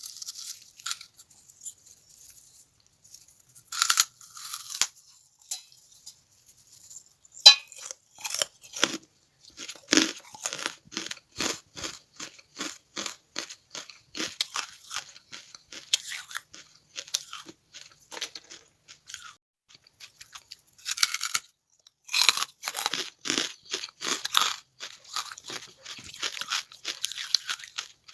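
Charcoal being bitten and chewed: a few sharp crunching bites with the loudest crack about seven seconds in, then steady crunching chews about two a second.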